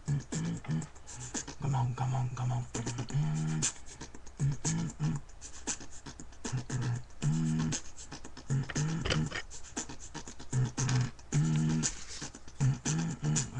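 Human beatboxing: a rhythm of sharp mouth clicks and hissing hi-hat sounds, alternating with short hummed low bass notes.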